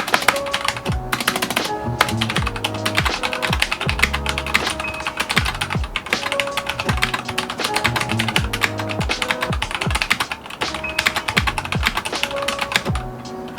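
Rapid typing on a Vortexseries VX5 mechanical keyboard, most keystrokes on Gateron Black linear switches, a dense run of clicks and clacks. Background music with a drum beat plays along with it.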